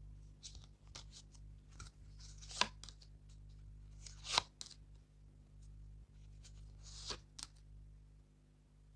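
Tarot cards being handled on a table: faint scattered papery swishes and slides, with three sharper clicks about two and a half, four and a half and seven seconds in. A steady low hum sits underneath.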